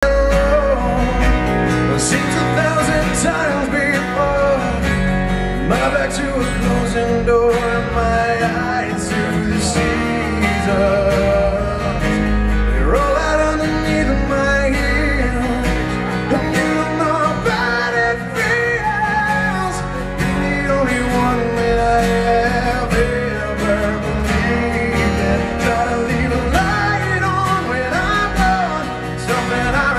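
Live acoustic band performance: strummed acoustic guitars with a man singing lead into a microphone, heard through the venue's PA.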